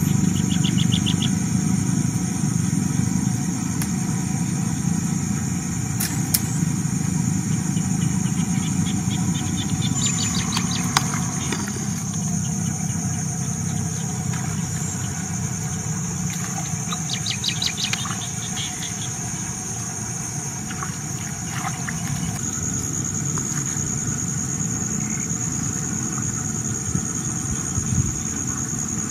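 Forest ambience: a steady low rumble under a steady high-pitched whine, with short rapid trills three times.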